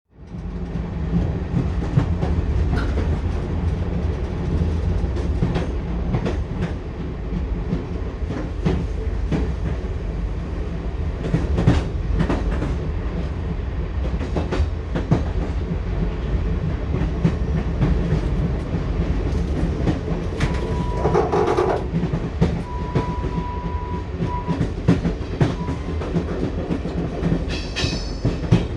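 Passenger train running: a steady low rumble with the clickety-clack of the wheels over the rail joints. About two-thirds of the way through, a short broken beeping tone sounds over it.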